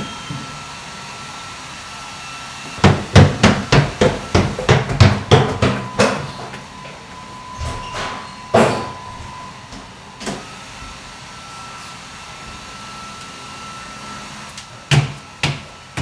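Heavy feet thumping on a stairway: a quick run of about three steps a second, then a couple of single heavier thumps, and more stomping near the end.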